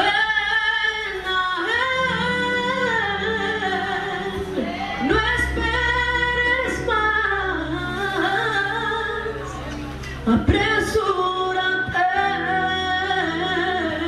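A woman singing a slow melody with long held notes into a handheld microphone, amplified through a PA. A steady low chord accompaniment runs underneath and shifts chord a few times.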